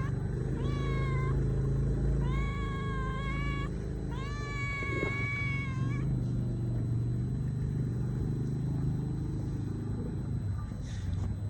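Stray mother cat meowing three times in long, drawn-out calls, hungry and asking for food. A steady low rumble runs underneath.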